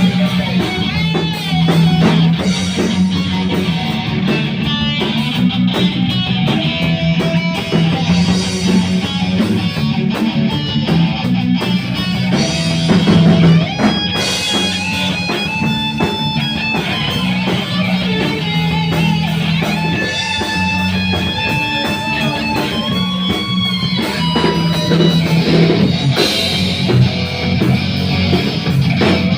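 Rock music with electric guitar and bass guitar: a steady bass line under a wandering guitar melody.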